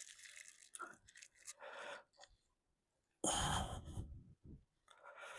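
Oil-soaked rope seal being pushed down into its groove in the engine block with a socket extension: scattered short rubbing and scraping noises, with one louder rush of noise about three seconds in.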